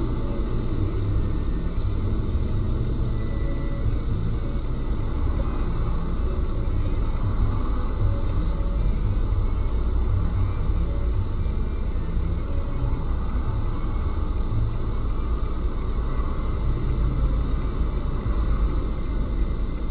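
Steady low rumble of a car's engine and road noise, heard from inside the cabin through the dashboard camera's microphone.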